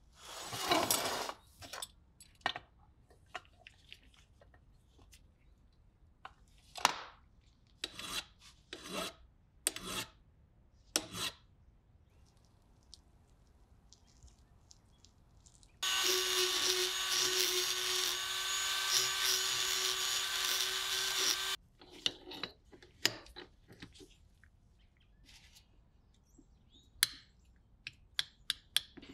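Scattered handling knocks and clicks, then a rotary tool fitted with a ball burr runs at a steady high speed for about five seconds, grinding at the peened-over backs of the hoof knife's handle screws. A few sharp metal taps near the end.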